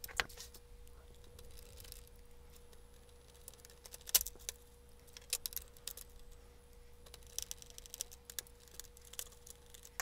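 Scattered small clicks and light rattles of wires and plastic header connectors being handled and moved about inside an opened CDJ-1000 MK3, the sharpest about four seconds in, over a faint steady hum.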